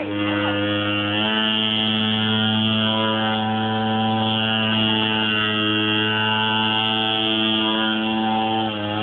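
Small quad bike's engine running at a steady speed under constant throttle, its pitch holding nearly level, with a brief dip near the end.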